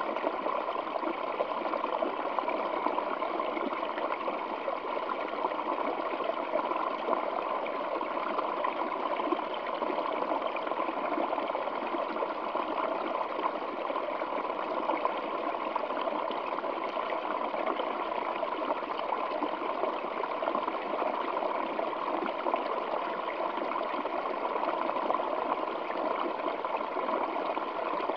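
Waterfall flowing over rocks: a steady rush of water, splashing and gurgling evenly without a break.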